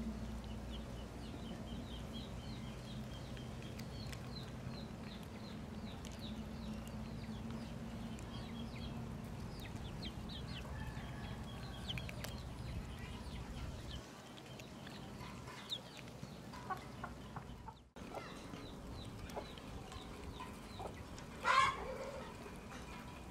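Chickens clucking around feeding cats, with many short high chirps through the first half and one louder call near the end.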